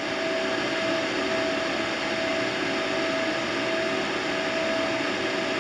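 Steady fan-like whooshing with a constant hum, from the cooling fans of an Ameritron 1.5 kW solid-state linear amplifier running while it transmits.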